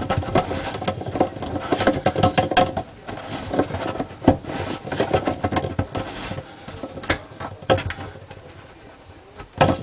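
Plastic clicking and rattling as a dishwasher's upper spray arm assembly is handled and screwed onto its threaded mount, with a sharp knock near the end.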